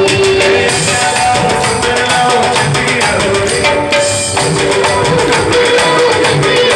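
Upbeat Telugu wedding song (pelli paata) with a steady drum and percussion beat under a melody line.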